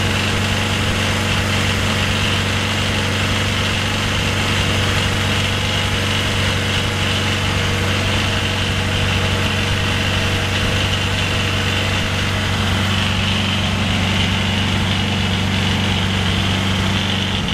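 Rotax 914 UL turbocharged flat-four aircraft engine running on a dynamometer at a steady speed, a constant engine note with a steady high whine above it.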